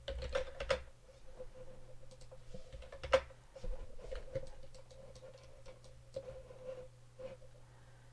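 Scattered computer mouse clicks and light keyboard taps, one sharper click about three seconds in, over a faint steady hum.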